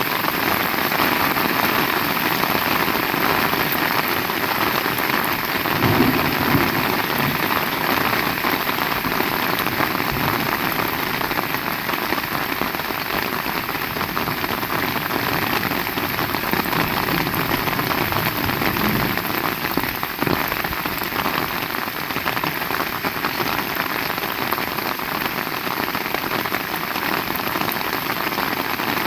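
Heavy rain falling steadily, a dense even hiss of drops on surfaces, with a few soft low thumps about six seconds in and again near the twenty-second mark.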